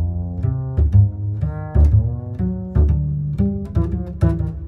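Background music carried by low string notes, with a new note starting sharply about every half second.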